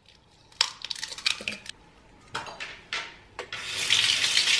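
Kitchen things being handled on a counter: a scatter of small clicks and knocks, then about a second and a half of steady scraping or rustling near the end, the loudest part.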